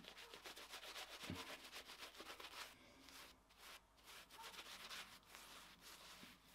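Shaving brush lathering shaving cream over a stubbly face: a faint, quick run of bristly brushing strokes that thins out after about three seconds.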